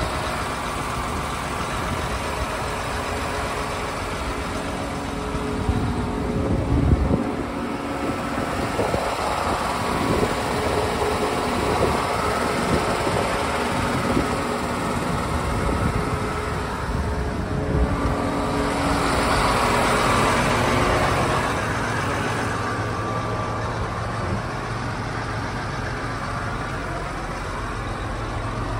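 John Deere 8370R tractor's 9.0-litre six-cylinder diesel engine idling steadily. There is a thump about seven seconds in.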